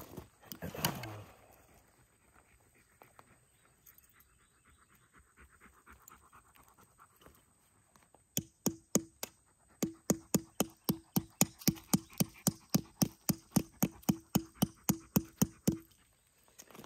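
German shepherd panting hard and steadily, about three to four pants a second, through the second half. A single thump comes about a second in.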